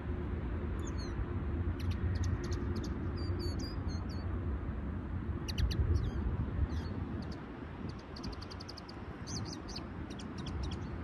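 Small songbirds giving high, thin chirps and quick twittering phrases in scattered bursts, over a steady low rumble of background noise.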